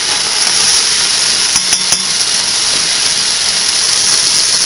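A pork roast sizzling steadily in hot olive oil in a stainless pressure cooker pot as it browns, with a few clicks about one and a half to two seconds in.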